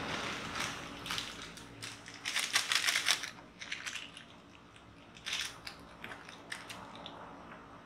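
Hand food preparation: a crackling rustle, loudest about two to three seconds in, then scattered small clicks as an ingredient is cut in the hand with a small knife.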